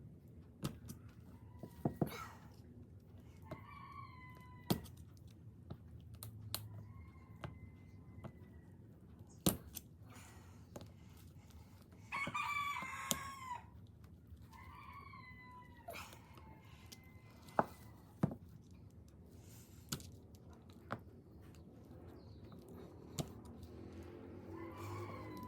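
A rooster crowing several times, the longest and loudest crow about halfway through, with scattered sharp clicks and knocks.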